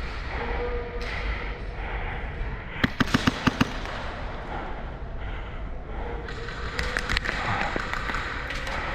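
Airsoft guns firing: a quick string of about six sharp shots about three seconds in, then scattered fainter snaps a few seconds later.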